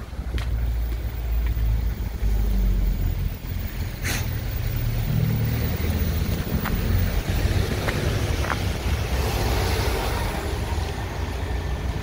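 City street traffic with a steady low rumble, and a vehicle passing by about nine to eleven seconds in.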